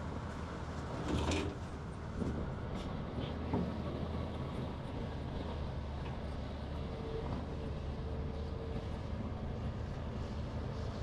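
Heavy-equipment diesel engine running steadily at a low drone, with a few sharp metal clanks in the first few seconds, the loudest about a second in.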